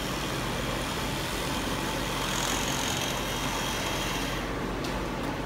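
Oscillating multi-tool running steadily with a flat scraper blade, buzzing as the blade scrapes peeling enamel off painted wooden trim. The higher scraping hiss falls away near the end while the motor's buzz carries on.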